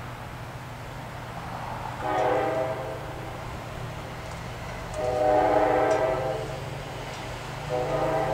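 MARC commuter train's diesel locomotive sounding its multi-tone air horn in three blasts, the middle one longest and the last starting near the end, as a warning for the grade crossing ahead. A steady low drone runs underneath.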